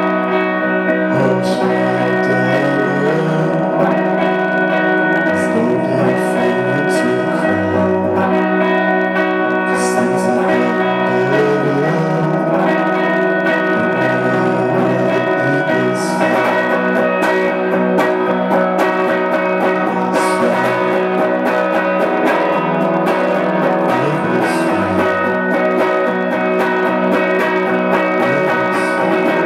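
Live band music with an electric guitar playing sustained, ringing chords and a man singing over it.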